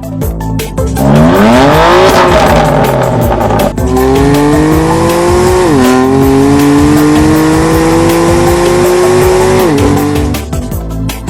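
BMW M2 Competition's twin-turbo straight-six breathing through an Akrapovic titanium slip-on exhaust, revving up sharply about a second in, then accelerating hard through the gears, the pitch climbing steadily and dropping at each of two upshifts before fading away. Electronic music plays underneath.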